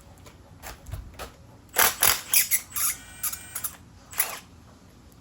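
Cordless 3/8-inch Milwaukee stubby impact wrench, with several short, sharp bursts and a squeaky whine about two to four seconds in, as it works on the engine's head bolts.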